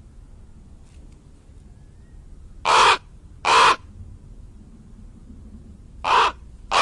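Crow cawing: two loud, harsh caws a little under a second apart, then another near the end.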